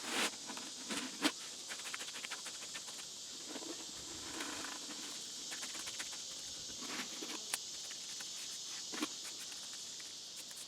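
Footsteps with scattered knocks and scrapes, the sharpest knocks about a second in, over a steady high hiss of outdoor background.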